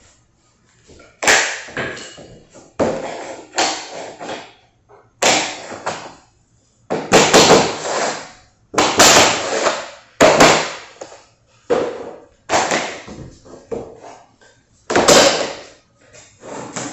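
Vinyl planks being laid and tapped into place on the floor: about a dozen irregular, sharp taps and knocks, each fading out briefly.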